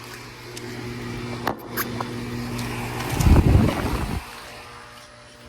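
Carrier Comfort outdoor air-conditioner units running with a steady low hum. There are a couple of sharp clicks about a second and a half in, and a brief low rumble a little after three seconds.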